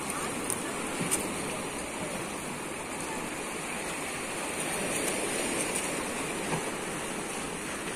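Steady rush of flowing river water against the rocks, with a couple of light clicks about a second in.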